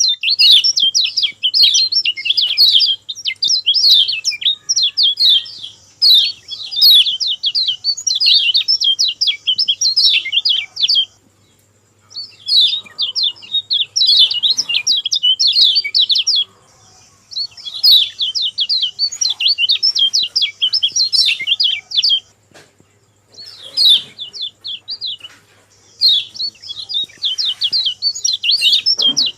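Kecial kuning (lemon-bellied white-eye) singing a rapid, chattering song in long phrases of several seconds, broken by brief pauses.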